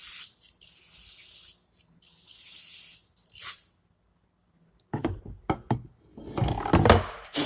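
An aerosol spray cleaner hissing in three short blasts and a brief fourth, cleaning off an engine part. After a pause comes a clatter of knocks and rubbing, the loudest sounds, as the part is handled and wiped.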